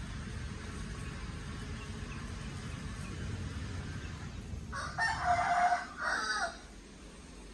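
A rooster crows once, a pitched call about two seconds long with a brief dip before its last part, over a steady low rumble.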